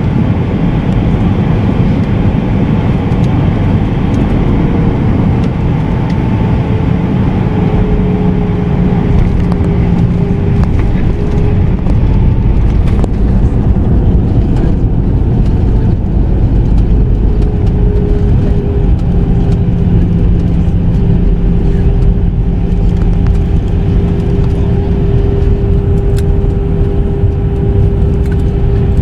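Airbus A320-211 with CFM56 engines landing and rolling out on a wet runway, heard inside the passenger cabin: a loud, steady rumble of engines and runway. An engine whine of steady pitch comes in a few seconds in and again through the second half.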